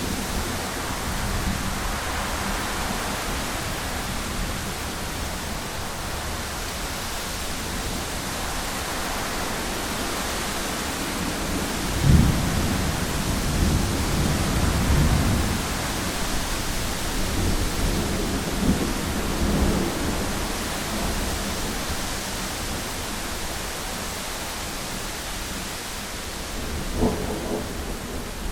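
Thunderstorm: steady rain and wind hiss, with a sharp thunderclap about halfway through that rolls on into low rumbling for several seconds, more rumbles a few seconds later, and another crack near the end.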